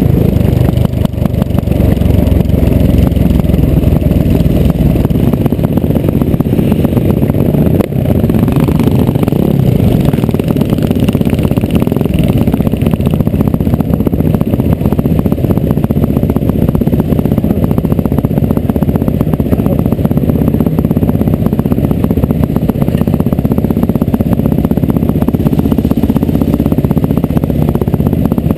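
Dirt bike's engine running at low revs, close up from a camera mounted on the bike, as it is ridden slowly over a dirt track.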